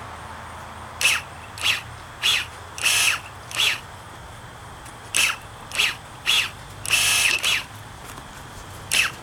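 A bird giving short, harsh calls in runs of about five, with a pause of a second or more between runs. A third run begins near the end.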